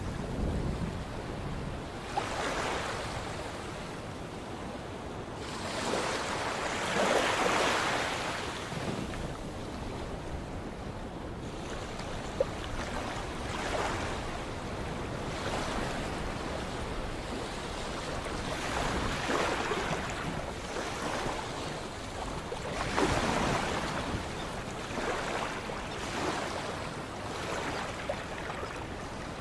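Sea waves breaking and washing ashore, the surf swelling in a fresh surge every few seconds over a steady wash. There is a brief sharp click about twelve seconds in.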